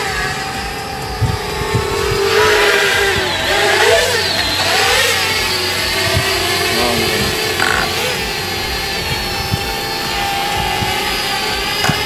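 Parrot Bebop 2 quadcopter's motors and propellers whining, the pitch rising and falling as the drone manoeuvres.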